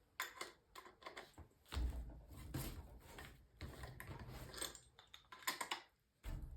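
Irregular clicks, knocks and rustling from hand work with tools and pipe fittings, with a few dull thuds.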